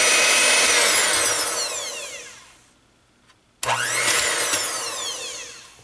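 VonShef hand mixer's electric motor spinning its attachments at full speed, then winding down to a stop about two and a half seconds in. It is switched on again about a second later, whines up to speed, and winds down again near the end.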